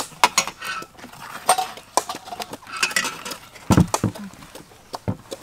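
Metal spoons scraping and clicking against the insides of young green coconut shells as the soft flesh is scooped out, in a quick, irregular run of scrapes and taps. There is a duller knock a little past the middle.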